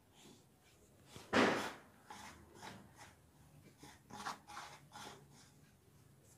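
A hand working dry flour mix in a stainless steel bowl: a series of rubbing and scraping strokes, the loudest about a second and a half in.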